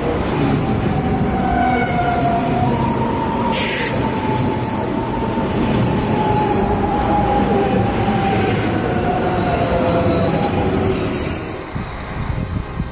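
An ICE high-speed electric train passing close by at speed: a loud, steady rush of wheels and air with a slowly falling whine. It dies away near the end as the train clears.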